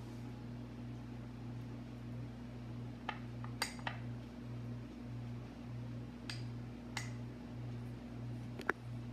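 Metal spoon stirring tomato sauce in a small glass bowl, clinking against the glass several times from about three seconds in, over a steady low hum.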